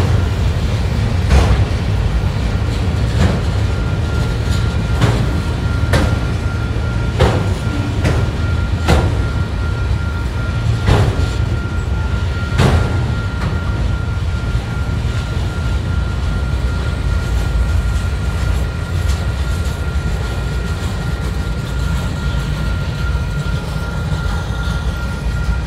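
Freight train of autorack cars rolling past: a steady low rumble with a sharp wheel click every one to two seconds, the clicks dying away about halfway through. A thin steady whine comes in about a third of the way through and holds to the end.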